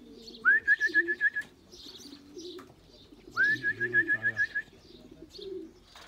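Racing pigeons cooing at the loft. Twice, a shrill call sounds over them: a rising note that breaks into a quick string of short repeated chirps.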